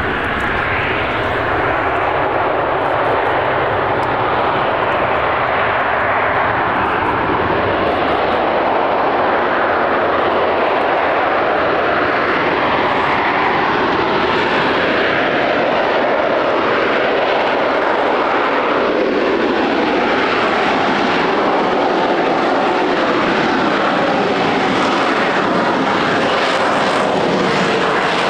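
Rolls-Royce Pegasus turbofan of an AV-8B Harrier II Plus jump jet running loudly and steadily, its tone slowly shifting and swirling.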